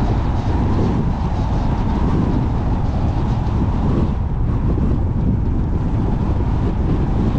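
Steady rumble of a car driving along a paved road: tyre and road noise with wind buffeting the microphone.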